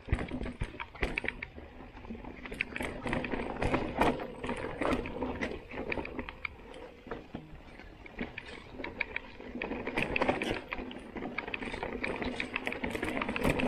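Mountain bike riding down a rough dirt trail: tyres rolling over roots and stones, with frequent irregular knocks and rattles from the bike.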